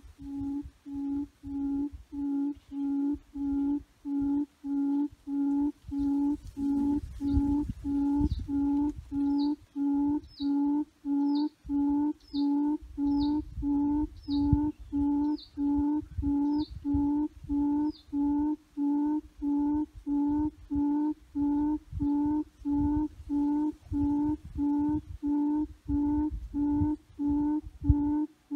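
A recorded bird call played through a loudspeaker as a hunting lure: a low hooting note repeated steadily, about three every two seconds. From about 7 to 18 seconds in, a short high down-slurred chirp repeats about once a second alongside it.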